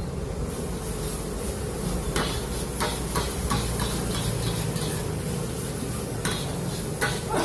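Metal spatula scraping and clinking against a wok as fried rice is stir-fried, over the steady hiss of frying. Sharp clinks come about every half second from around two seconds in.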